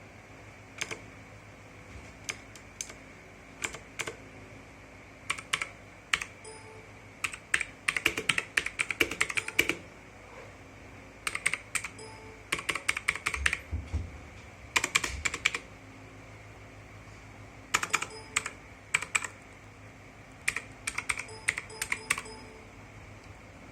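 Typing on a budget mechanical keyboard: sharp key clicks in irregular runs, fast flurries of keystrokes broken by short pauses.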